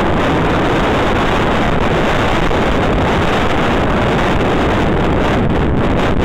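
Loud, steady wind noise on the microphone of a mountain bike coasting downhill, mixed with the rumble of its tyres on loose gravel.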